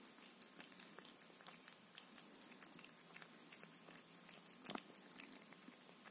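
Cat eating soft meat pâté: faint, irregular wet lapping and chewing smacks.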